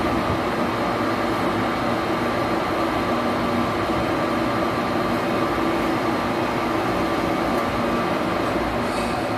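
Metal lathe running steadily, a constant machine hum while a part is turned.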